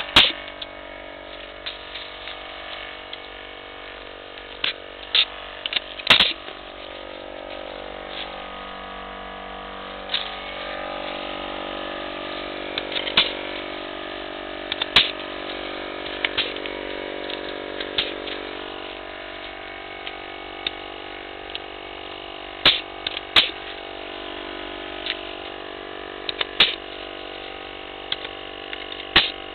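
Battery-powered air compressor running with a steady hum while pneumatic pruning shears snap shut on branches, about fifteen sharp cuts at irregular intervals.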